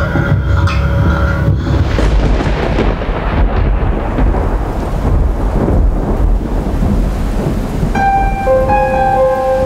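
Thunderstorm: rumbling thunder over steady rain. About eight seconds in, a few held eerie tones come in over the storm.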